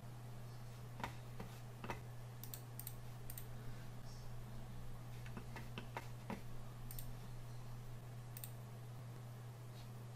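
Computer mouse and keyboard clicking while browsing, about a dozen irregular single clicks, over a faint steady low hum.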